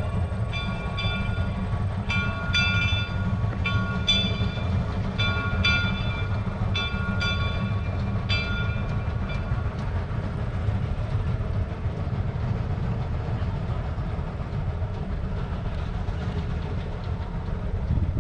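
A steam locomotive's bell ringing: repeated strikes about one to two a second that stop about nine or ten seconds in. A steady low rumble from the train runs underneath.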